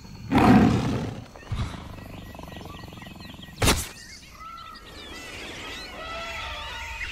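Animal calls: a loud, low roar-like call in the first second, a sharp crack about halfway through, then many short chirping calls.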